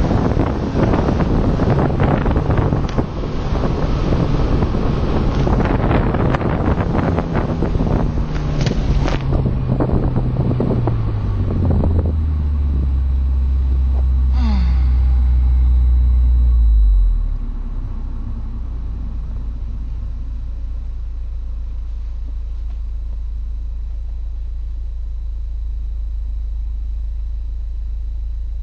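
BMW Z4 E85 2.0i's four-cylinder engine and road noise as the car slows, the engine note falling with the wind and tyre noise fading. After that comes a loud, steady low engine drone for a few seconds, which drops off suddenly to a steady idle at about two-thirds through.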